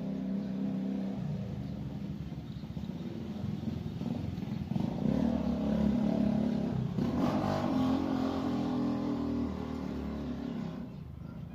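Small engine of a water pump running, with its speed rising about halfway through and then easing back.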